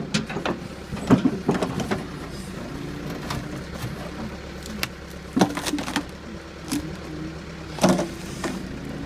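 Backhoe's diesel engine running steadily under load, its pitch shifting slightly as it works, with several sharp knocks and clanks: a cluster in the first two seconds and single ones about five and a half and eight seconds in.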